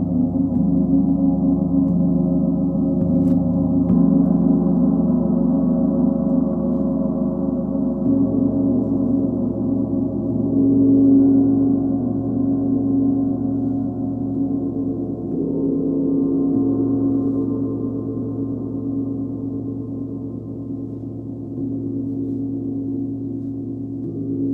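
Large planetary gongs (Sun, Full Moon and Earth) played continuously with a mallet: a dense, sustained wash of low overlapping tones that swells afresh a few times as the gong is worked again.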